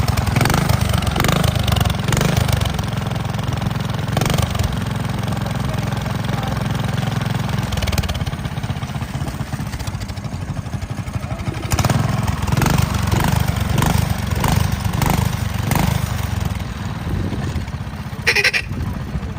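Vintage motorcycle engine running, getting louder and easing off a few times.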